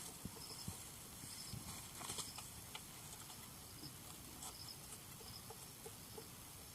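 Faint, irregular clicks and taps of a spanner working the chain adjuster bolt on a Yamaha Fazer V2's swingarm, tightening the drive chain.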